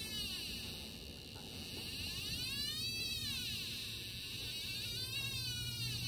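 Trifield TF2 EMF meter's speaker in RF mode giving a steady electronic buzz, the audible sign of the radio-frequency signal it is picking up. Through the buzz, whistling sweeps rise and fall three times.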